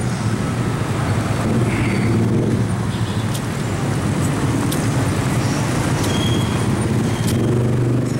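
Street traffic: a steady rumble of vehicle engines, with a few light clicks.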